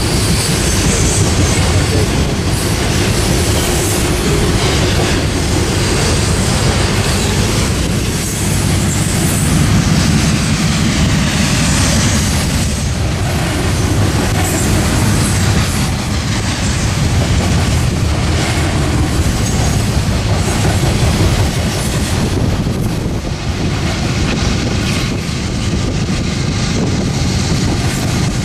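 A long freight train of open-top hopper cars rolling past: a steady rumble of steel wheels on rail, with a running clickety-clack over the rail joints and some high wheel squeal.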